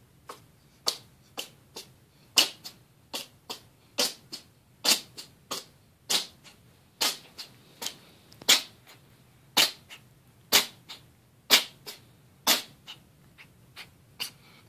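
A cat sneezing over and over in a long fit: about thirty short, sharp sneezes, roughly two a second, some much louder than others.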